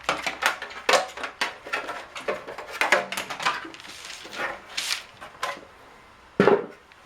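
Hard plastic parts of a Keurig coffee maker clicking and knocking as they are handled and pried apart, many small clicks in quick succession, then one short, louder sound about six and a half seconds in.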